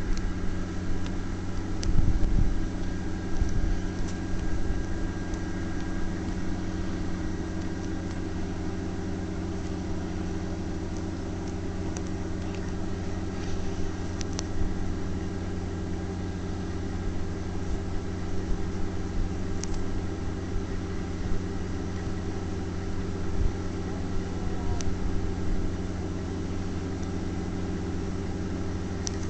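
The engine of an MCR600 rail rotary snowplow motor car running at a steady, unchanging speed, with a few faint clicks over it.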